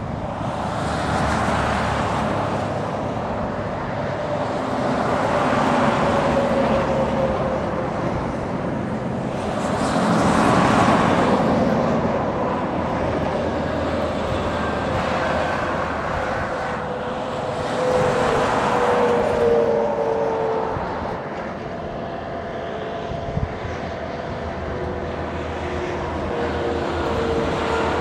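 Road traffic passing, each vehicle swelling up and fading every few seconds, with a faint whine that drops in pitch as it goes by, over a steady low hum. A single brief knock late on.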